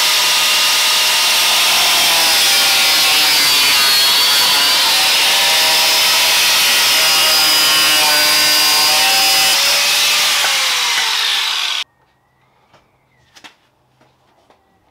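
Corded angle grinder with a cutting disc cutting back the sheet-metal front guard of a Land Rover Discovery 2 for tyre clearance: a loud, steady screech with a whining pitch that wavers as the disc bites. It stops abruptly about twelve seconds in.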